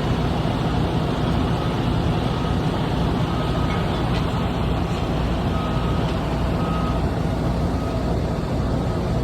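Heavy diesel vehicle engine running steadily, with a faint reversing alarm beeping at intervals over it.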